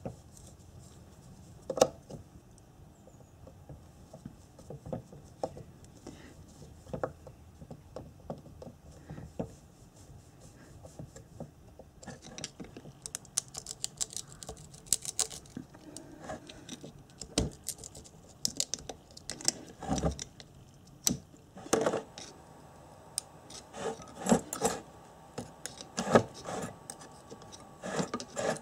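Small screwdriver scraping and prying at the field-coil rotor of a Honda CB650 alternator while it is stripped down: irregular metal clicks and short scrapes. The sharpest click comes about two seconds in, and the scraping comes thicker through the second half.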